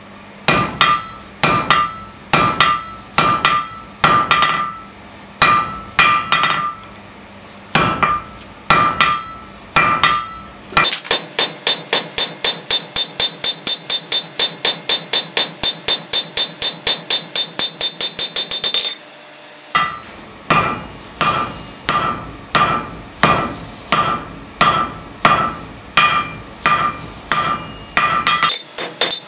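Hand hammer striking a red-hot steel bar on a steel anvil, each blow followed by the anvil's bright ring. Spaced blows at first, then a fast run of lighter blows about three a second, a brief pause, and steady blows again; the smith is drawing out the end of the bar.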